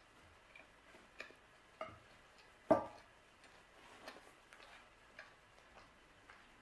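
Quiet chewing of pizza: scattered small wet mouth clicks and smacks. One louder knock comes a little under three seconds in, as a smartphone is set down on the table.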